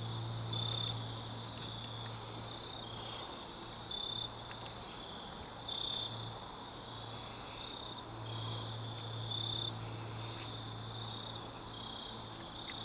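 Crickets trilling steadily at a high pitch, with louder chirps every second or two, over a low steady hum.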